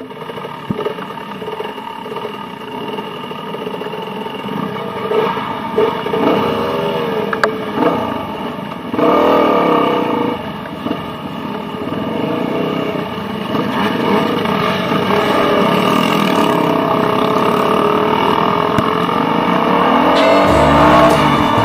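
Several dirt bike engines running, with repeated revs that rise and fall in pitch as the bikes pull away one after another. Background music comes in near the end.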